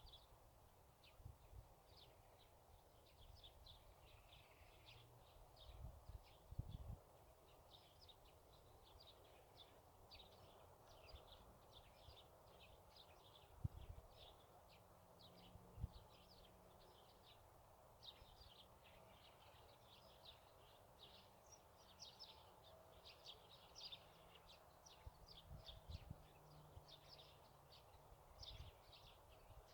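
Faint chirping of small birds, many short high calls repeating throughout, over quiet outdoor ambience with a few soft low thumps.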